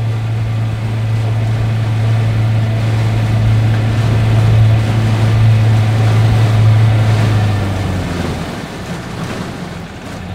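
Outboard motor running steadily, driving a small aluminum jon boat; it is throttled back about eight seconds in and runs quieter.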